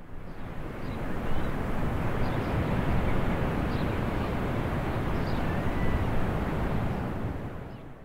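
A steady outdoor rushing noise that fades in over the first second and fades out near the end.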